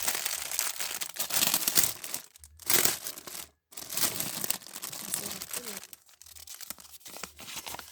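Gift wrapping paper crinkling and tearing in irregular bursts as a present is unwrapped by hand, with a short pause partway through.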